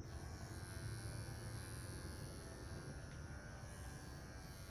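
Electric dog grooming clippers running with a steady buzz as the blade cuts through a short coat on a dog's neck.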